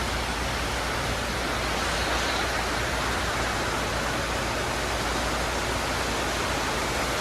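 Heavy rain pouring steadily onto a roof and the street, with water dropping from the roof edge, an even hiss with no pauses.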